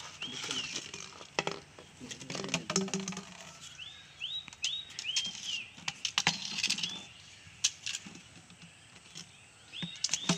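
Small bird calling repeatedly: short chirps that sweep up and then hold, in little runs, with scattered sharp clicks and knocks between them.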